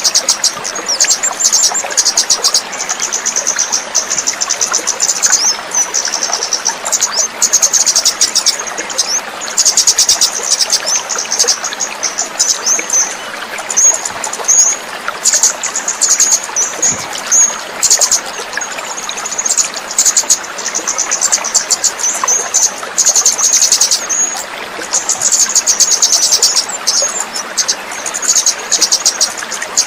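Orange-headed thrush (kemade) singing continuously: a rapid, high-pitched chattering run of notes with brief pauses.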